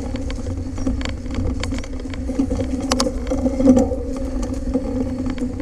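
Mountain bike riding over a dirt trail, heard through a handlebar-mounted camera: a steady rumble and hum from the tyres and frame, with scattered clicks and rattles from bumps and a louder knock about three seconds in.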